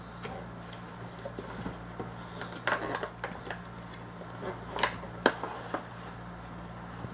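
Plastic packaging and miniatures being handled: scattered sharp clicks and crinkles, a cluster about three seconds in and another about five seconds in, over a steady low hum.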